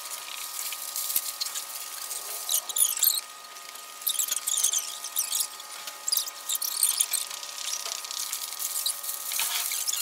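Paper sheets crackling and rustling as they are pulled down off a glass case and crumpled, played fast-forward so it sounds high and squeaky, in continual quick bursts.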